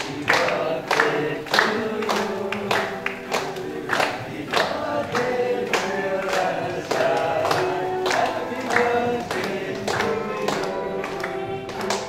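A group of voices singing together with rhythmic hand clapping in time, about two claps a second.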